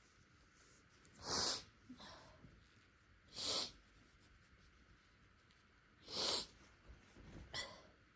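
A person sniffing through the nose four times, a few seconds apart, each sniff short and hissy.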